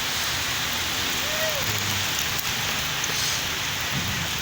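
Steady rushing hiss, with faint voices now and then.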